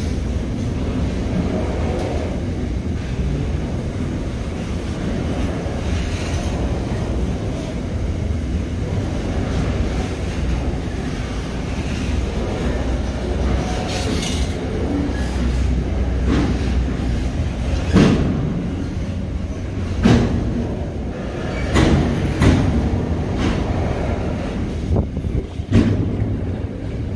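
Container freight train's wagons rolling past close by: a steady low rumble, with several sharp knocks and clanks from the wheels and wagons, most of them in the second half.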